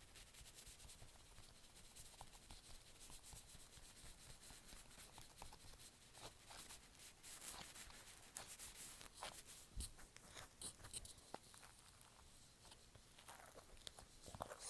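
Faint crackling and small clicking pops of homemade foam-bead slime being squeezed and pulled apart by hand.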